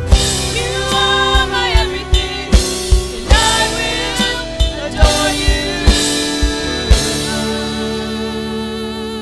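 Live contemporary worship band: a drum kit keeps a steady beat under singing and sustained chords. About seven seconds in the drums drop out and a held chord rings on.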